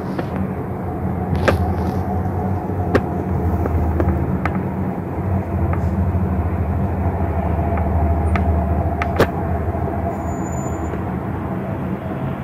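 Steady low outdoor rumble with a faint steady hum and a few scattered light clicks.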